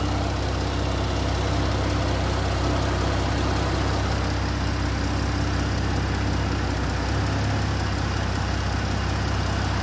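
Chrysler 3.8 L V6 idling steadily with a low, even hum, running on a newly fitted remanufactured alternator.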